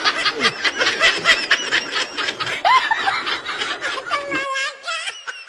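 Laughter: a rapid run of short snickering laughs, which gives way about four and a half seconds in to a high wavering tone.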